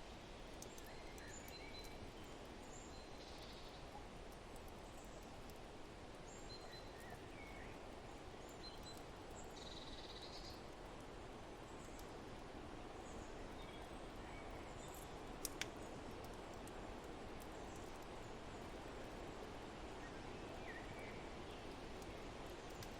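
Faint forest ambience: a steady rush of wind with scattered short bird chirps. A single sharp click comes about two-thirds of the way through.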